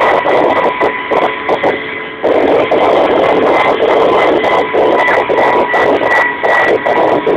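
Kamov Ka-26 helicopter in flight, heard from inside the cabin: its two radial piston engines and coaxial rotors make a loud, continuous din with a steady high whine. The noise crackles and distorts as it overloads the recording.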